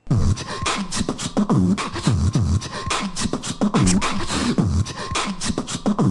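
A fast hip-hop beat that starts abruptly: deep kick-drum thumps roughly twice a second under busy clicking hi-hat-like strokes.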